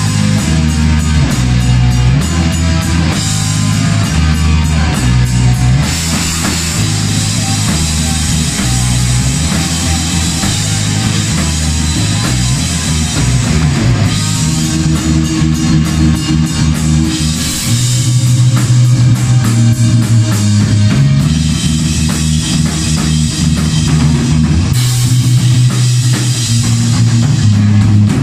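Rock music: electric guitar, bass and drum kit playing a hard-rock or metal passage, with the bass line moving in steps under steady drumming.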